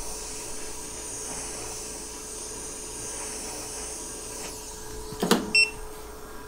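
Hot-air rework station blowing steadily with a high hiss, heating an iPhone 13 Pro sandwich logic board to split it. About five seconds in the air stops, followed by a sharp knock and a short electronic beep.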